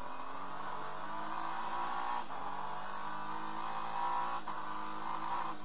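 Acura NSX GT3's twin-turbo V6 race engine pulling hard under acceleration, heard from inside the cockpit. Its note climbs and breaks off briefly at upshifts about two and four and a half seconds in.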